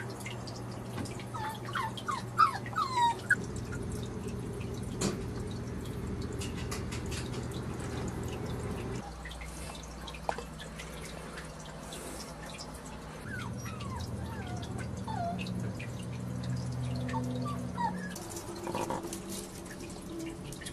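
Maltese puppies giving short high squeaks in quick runs of four or five, the loudest run about two seconds in and more near the end, over a steady low hum.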